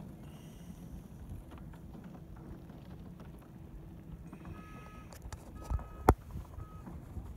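Low, fluttering wind noise on the microphone across open ice. About halfway through come a few short, high calls, and then two sharp clicks or knocks about six seconds in.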